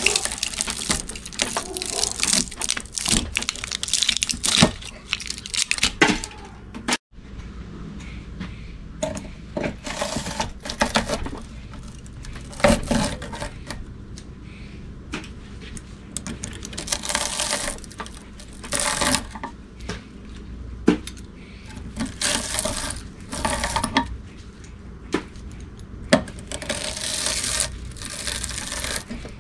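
Pliers and a pry tool working copper windings out of an electric motor's steel stator held in a vise: irregular metal clinks and scraping, with copper wire tearing loose.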